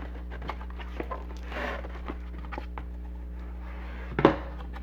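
Handling noises: scattered light clicks and rustles over a steady low hum, with one sharp knock about four seconds in.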